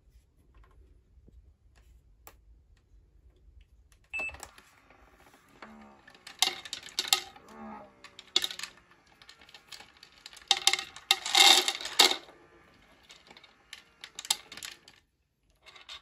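Automatic pet feeder dispensing dry kibble after its button is pressed: a faint low hum for about four seconds, then a short high tone, followed by irregular rattling and crunching as kibble drops into the plastic bowls and two cats eat. The loudest crunching comes near the end.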